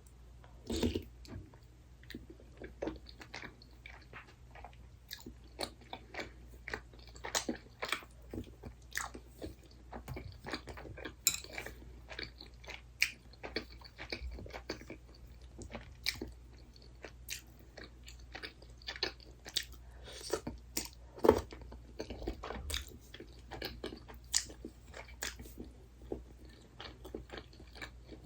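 Close-miked chewing and crunching of crisp snack food in irregular bites, with one loudest crunch a little past the middle.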